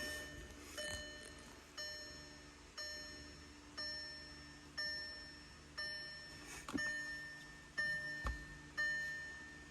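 A 2013 Volkswagen Beetle's warning chime dinging about once a second, each ding fading away, with the ignition switched on and the engine not yet running. Two sharp clicks come about seven and eight seconds in.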